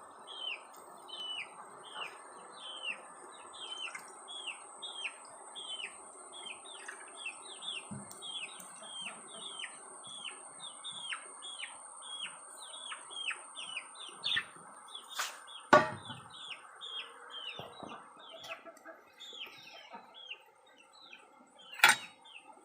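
A bird chirping over and over, short falling chirps at about two a second. A few sharp knocks break in, the loudest about two-thirds of the way through and just before the end.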